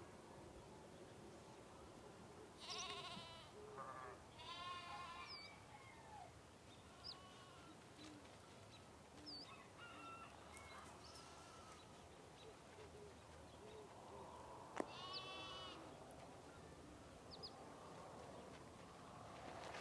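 Sheep bleating in a quiet farm ambience: two wavering bleats close together about three to five seconds in, fainter bleats between, and another clear bleat near the fifteen-second mark. Short high bird chirps sound here and there, and a single sharp click comes just before the last bleat.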